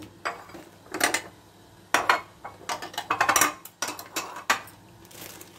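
White ceramic serving bowls being set down and shifted on a granite countertop: a series of short clinks and knocks, busiest around three seconds in.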